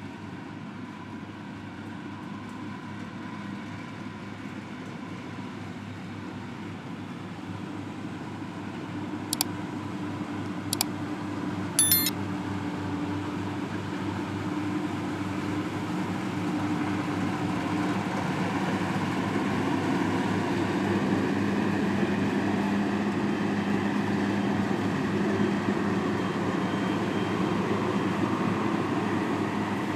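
Engine of a farm machine running steadily, growing gradually louder, with three short sharp clicks about nine to twelve seconds in.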